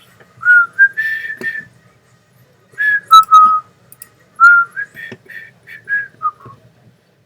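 A man whistling a tune in three short phrases, with a few faint clicks between the notes.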